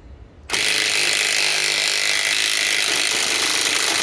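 Milwaukee M12 Fuel 3/8-inch stubby impact wrench hammering without a break as it drives a long lag screw into hardwood. It starts suddenly about half a second in.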